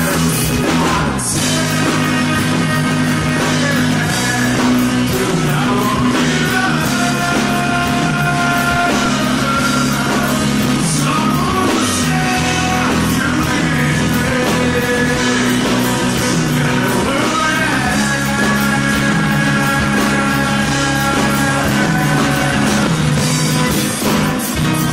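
Live rock band playing a song: a man singing over strummed acoustic guitar, electric bass and drums.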